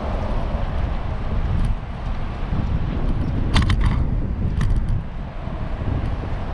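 Strong wind buffeting an action camera's microphone on a moving bicycle, a steady low rumble. A few sharp clicks come in a quick cluster about three and a half seconds in, and once more about a second later.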